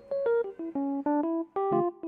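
Background music: a quick run of bright electric-piano notes, several a second.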